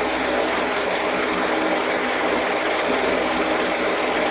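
Household electric fan running steadily: an even rush of air with a constant motor hum under it.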